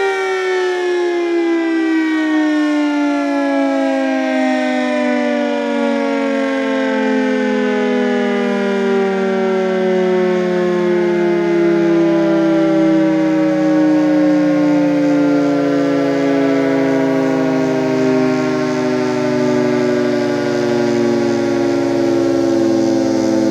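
Federal Signal 3T22 three-tone outdoor warning siren winding down after shutoff. Its chord glides slowly and steadily downward in pitch, the fall easing off as the rotor slows.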